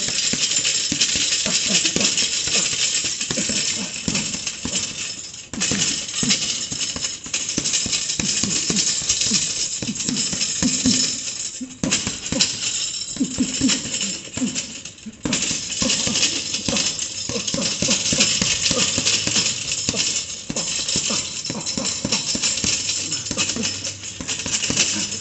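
Boxing gloves punching a double-end bag in quick combinations: rapid leather smacks as the ball snaps back on its elastic cords. The hitting breaks off briefly a few times.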